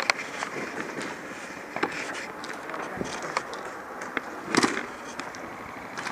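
Airsoft guns firing during a game: scattered sharp pops and clacks at irregular intervals, with the loudest short cluster about four and a half seconds in.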